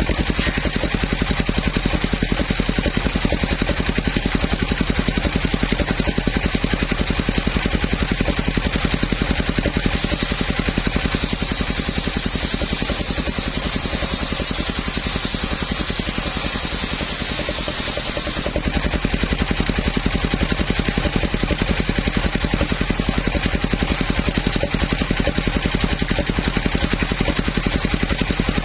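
Engine of a homemade circular sawmill rig running steadily with an even, fast firing rhythm. From about a third of the way in, a high hiss joins and cuts off sharply about two-thirds through, as the saw blade cuts through the coconut palm trunk.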